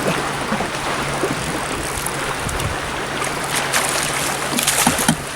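Water sloshing around a small fishing boat, with a low steady hum underneath and a few sharp splashes or knocks about three and a half to five seconds in.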